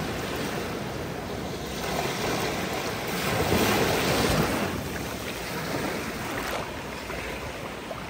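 Small ocean waves breaking and washing up a sandy beach at the water's edge. A wave breaks close by about halfway through, the loudest moment, and then its wash fades away.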